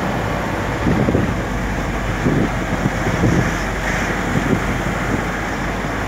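Wind buffeting the microphone: a steady rushing noise with uneven low gusty thumps.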